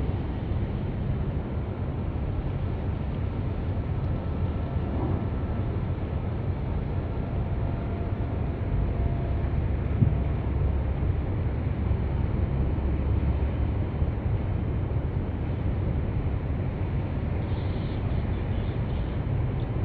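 Steady low rumble of a post-Panamax bulk coal carrier passing close by, mixed with wind on the microphone, with one brief knock about halfway through.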